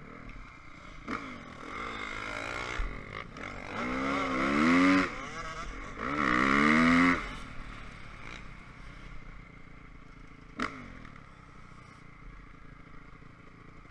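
Honda CRF450 dirt bike's single-cylinder four-stroke engine heard from on board, revving up hard in two surges about four and six seconds in, then settling to a lower running note. Two sharp knocks stand out, about a second in and near the end.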